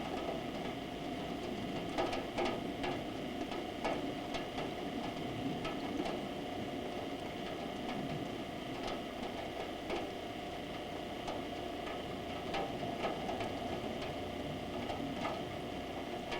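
Steady rain hiss with scattered drops ticking irregularly, over a faint steady hum.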